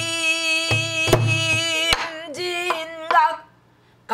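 A woman sings pansori: a long held note that breaks into a few short phrases and stops about three and a half seconds in. She accompanies herself on a buk barrel drum, with sharp stick strokes on the drum and low thumps of the drum head.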